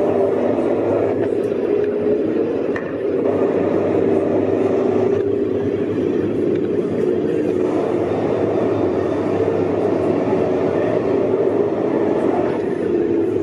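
A pack of NASCAR Whelen Euroseries stock cars with V8 engines running on track, a loud, steady blend of engine notes as the field goes by.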